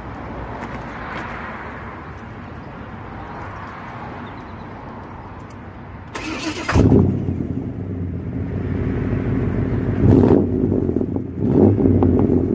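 1995 Chevy Impala SS's 5.7-litre LT1 V8 starting about six seconds in, heard at the exhaust tailpipe. It catches with a sharp burst, settles into a loud idle, and is revved twice near the end.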